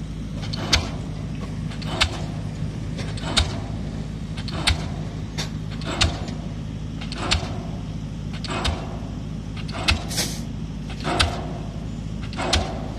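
Pile driver's hammer striking a concrete pile at an even beat, about one blow every 1.3 seconds, over a steady diesel engine hum.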